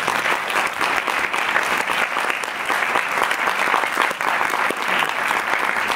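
Audience applauding a guest as he is introduced: dense, steady clapping from many hands.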